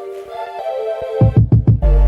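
Background electronic music: sustained synth chords over a heavy bass, which drops out in the first half and comes back after a quick run of low drum hits.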